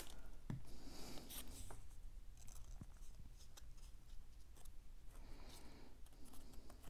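Faint rustling and rubbing of small cardstock pieces being handled and pressed together by fingers, with a few light taps, the sharpest right at the start.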